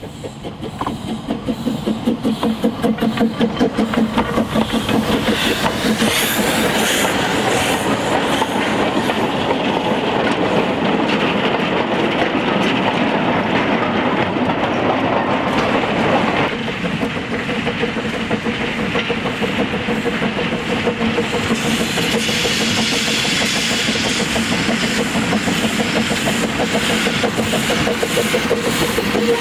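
Narrow-gauge steam locomotives at work hauling trains of slate wagons: a steady beat of exhaust with the wagons clattering over the rail joints, growing louder as the first train approaches. About halfway through the sound switches abruptly to a second train, a Double Fairlie locomotive passing with its slate wagons rattling.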